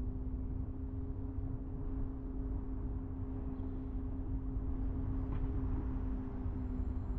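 Car being driven at a steady pace: a continuous low rumble of engine and tyres with a constant hum underneath.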